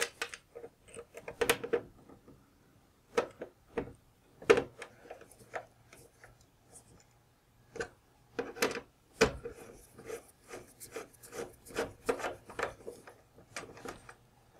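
A screwdriver turns the terminal screws on a Blue Sea blade fuse block to fasten a crimped wire connector. It makes short, irregular scraping clicks of metal on metal, in clusters with brief pauses between them.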